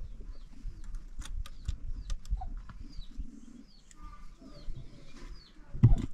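Birds chirping over and over in short falling notes, with low knocks and rumbling underneath and one loud thump near the end.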